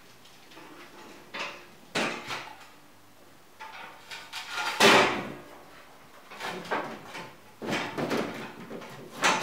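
Knocks, bumps and clatter of a metal hand truck being set against a wooden pallet shelf unit, in several separate bursts, the loudest about five seconds in.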